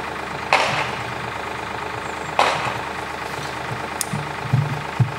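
Cable percussive drilling rig's engine running steadily, with two sharp clanks about two seconds apart from the automatic percussion mechanism working the drilling tool on its cable. A light click and a few dull low thuds come near the end.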